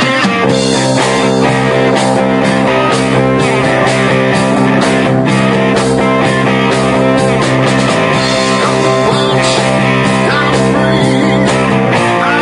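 Live rock band playing: electric guitars and keyboards over drums, with a steady beat.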